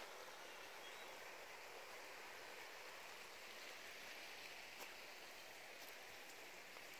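Faint, steady rush of Peters Creek flowing below the campsite, with a couple of soft clicks near the end.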